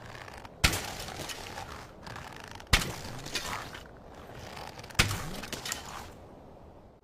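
Slingshot-and-arrow sound effect: three sharp shot-and-hit impacts about two seconds apart, each trailing off in about a second of rattling clatter.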